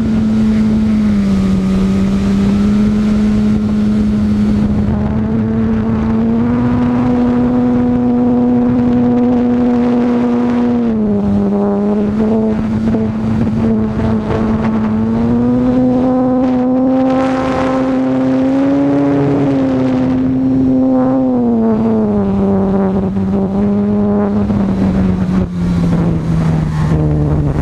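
E-flite Apprentice S 15E's electric motor and propeller running, a steady drone whose pitch steps up and down several times with throttle changes and drops lower near the end, over a rush of air noise.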